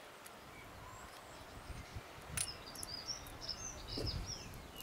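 Birds chirping faintly in short high calls, over low handling noise of small metal gearbox parts being fitted together by hand, with one light click about halfway.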